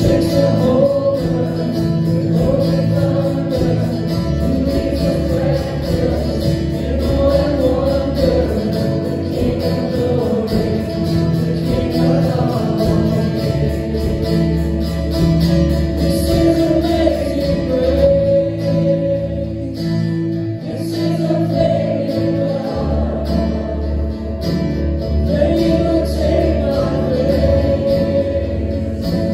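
A church worship band playing a song: strummed acoustic guitar with other guitars, and voices singing.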